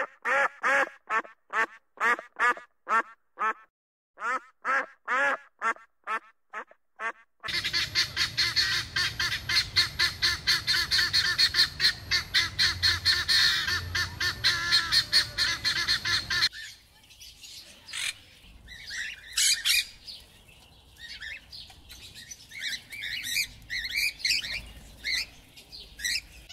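Ruddy shelduck calling: short groups of nasal, goose-like honks, several a second. About seven seconds in, this gives way to helmeted guineafowl chattering in a fast, unbroken run of harsh cackling calls. Around sixteen seconds in, that stops and sparser, scattered bird calls follow.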